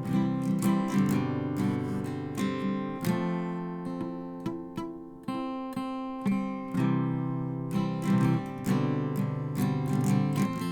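Acoustic guitar strummed in a steady rhythm, its chords ringing between strokes, with no singing.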